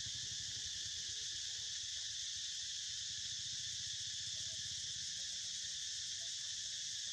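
Steady, high-pitched drone of an insect chorus, unbroken and even, with a faint low hum underneath.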